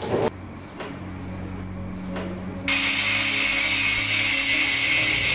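A short knock near the start, then an angle grinder with an abrasive disc: about two and a half seconds in, the disc meets the rusty steel hammer head and a loud, steady grinding begins.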